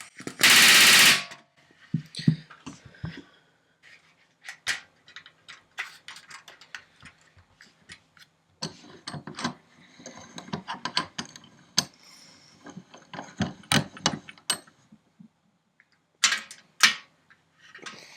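Pneumatic rivet gun hammering in a flush countersunk aluminium rivet in one loud burst of about a second near the start, followed by scattered clinks and knocks of tools and parts being handled, with two sharp knocks near the end.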